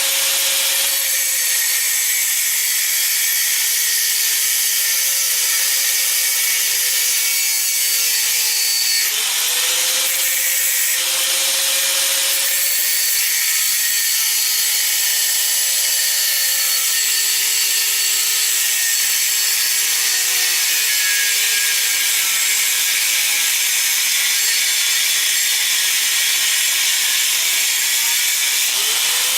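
Angle grinder with a thin cutoff wheel cutting through the steel of a knife's frame lock: a steady, harsh grinding. The motor's note sags slowly as it loads up and jumps back up a few times when the pressure eases.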